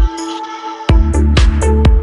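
Electronic dance music with a heavy, regular kick drum and bass. The drums and bass drop out for a moment at the start and come back in about a second later.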